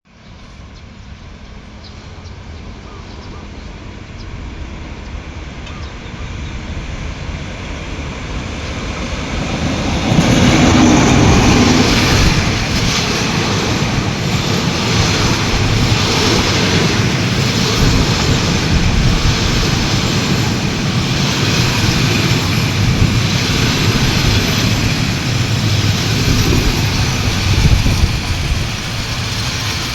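Diesel-hauled passenger train approaching and growing steadily louder, with the locomotive reaching its loudest about ten seconds in. The carriages then roll by with regular clacks of the wheels over rail joints as the train comes into the station.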